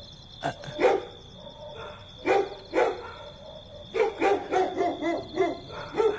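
A dog barking repeatedly, about ten short barks in irregular groups, with insects chirping steadily behind.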